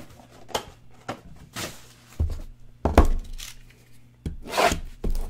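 Cardboard trading-card hobby boxes being handled: a few light knocks, a heavier thump about three seconds in, and a rustle of cardboard near the end as the next box is opened.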